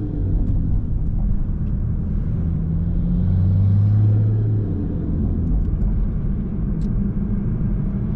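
Toyota Supra MK5 engine and exhaust running steadily while driving, a low drone with tyre and road rumble. The drone swells for about a second and a half around three seconds in, then settles back.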